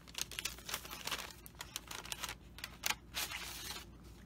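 Paper rustling and crinkling in irregular bursts as small kraft paper bags and the kit's packaging are handled, with a few louder crackles about one and a half and three seconds in.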